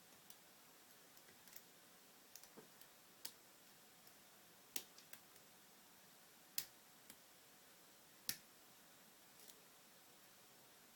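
Faint metal clicks and ticks of a lock pick and tension wrench working the pins of a 5-pin padlock during single pin picking. Three sharper clicks come in the middle, about two seconds apart.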